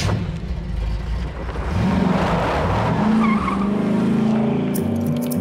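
Muscle car pulling away with a skid of its tyres, the engine revving up and falling back as it shifts and draws off. Music comes in near the end.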